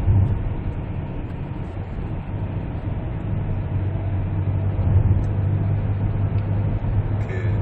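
Steady in-cabin drone of a 2017 Kia Carnival diesel minivan driving on the road: a low engine hum mixed with road and tyre noise.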